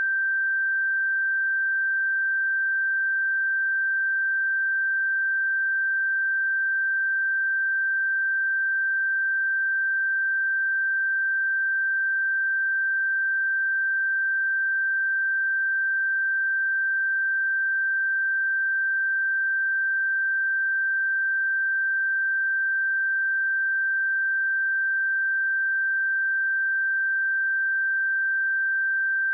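A pure 1567 Hz sine-wave test tone, one steady high-pitched note held at a constant level with no other sound.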